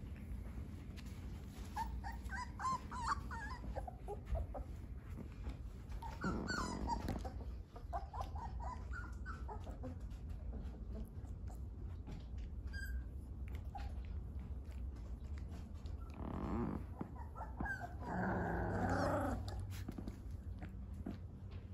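Three-week-old Dogo Argentino puppies making small growls and whimpers as they wrestle and mouth each other in play, in several short bouts, the loudest near the end.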